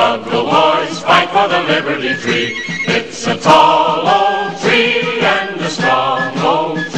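A crowd of men and women singing a song together in chorus, in phrases with short breaks between them.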